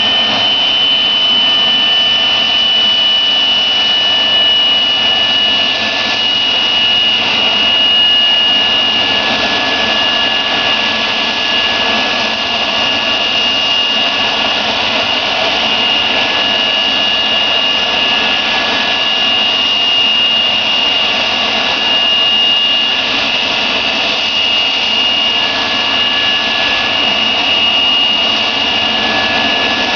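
Boeing 737-200's Pratt & Whitney JT8D low-bypass turbofan engines running steadily: a loud, even rushing noise with a high, steady whine on top.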